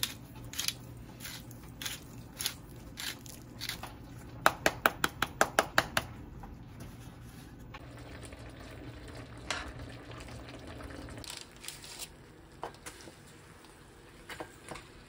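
A bottle-style pepper grinder being twisted, giving a run of sharp clicks, fastest and loudest about four and a half seconds in. Then a spoon stirring stew in a frying pan, over a low steady hum.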